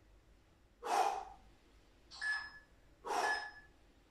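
A man breathing out hard through the mouth with each crunch: three sharp exhales about a second apart, the last two with a thin whistle.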